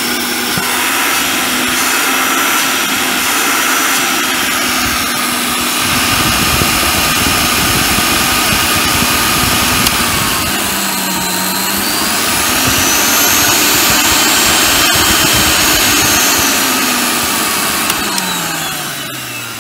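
Hoover Sensotronic S3128 vacuum cleaner's motor running steadily, its pitch shifting about halfway through, then winding down near the end as it is switched off.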